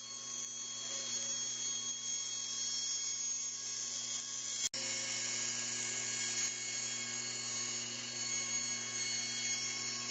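Electric power tool motor running steadily while cutting away wood, a constant high whine over a low hum, with a very brief cut-out a little under halfway.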